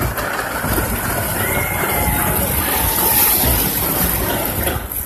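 Water rushing around a water-ride boat as it slides down a flume trough, a steady rushing hiss that is loudest about three seconds in.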